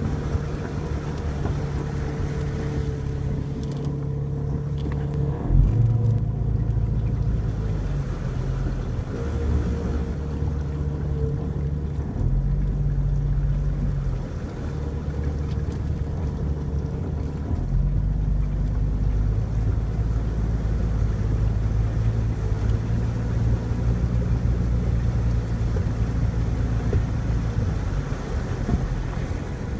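Jeep Cherokee XJ engine running as the Jeep wades through floodwater, its note shifting up and down several times, with water washing around the vehicle. A single thump about five and a half seconds in.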